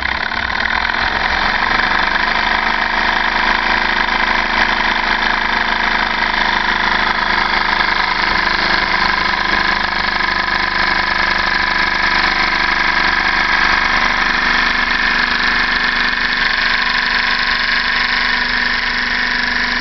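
Homemade gamma-type Stirling engine, built from cans with a light aluminium power piston sliding in a glass test-tube cylinder, running steadily at about 1500 RPM with an even mechanical whir.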